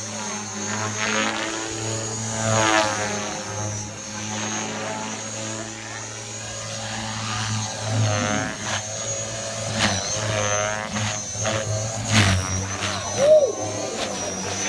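Align T-Rex 470LT electric RC helicopter flying, its rotor head governed at about 3200 rpm: a steady low rotor buzz under a thin high whine from the motor and tail rotor, swelling and fading as the helicopter moves around.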